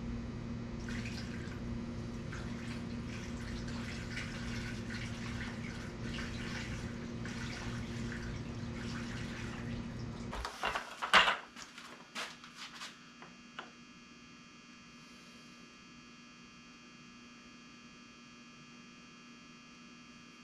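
A steady electric hum with liquid running underneath, typical of oil being pumped or poured into the tractor. Both stop suddenly about halfway through. A few metal clanks and knocks follow, the loudest about eleven seconds in, then only a faint hum is left.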